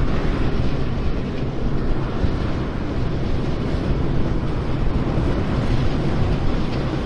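International Harvester 1460 Axial Flow combine running steadily under load while harvesting wheat, its 436-cubic-inch diesel engine making a heavy, continuous drone.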